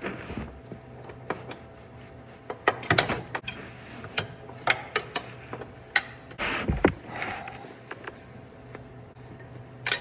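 Irregular metal clicks and knocks from hand tools working on a John Deere 1025R tractor's pedal linkage, with a few louder clanks among them.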